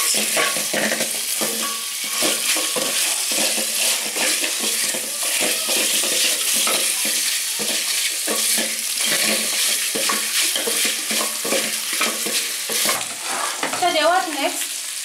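Pieces of beef frying in a little oil in a metal pot, sizzling, while a wooden spoon stirs them with frequent scrapes and knocks against the pot.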